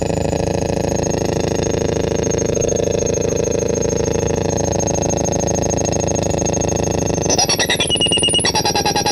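Homemade crystal-radio noise synth putting out a loud, dense electronic drone made of many steady tones. About seven seconds in, it switches abruptly to a harsher, higher warble that pulses rapidly.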